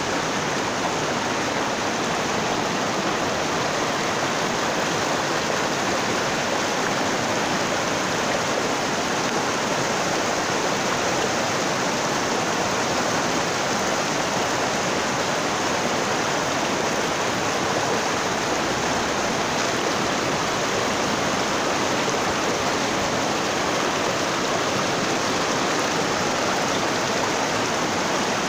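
Shallow, rocky mountain stream rushing over boulders and cobbles, a steady, unbroken rush of water.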